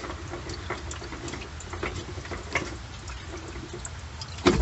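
Diesel fuel dripping and trickling from the opened fuel filter/water separator housing into a drain pan, as small irregular drips. There is a louder knock near the end.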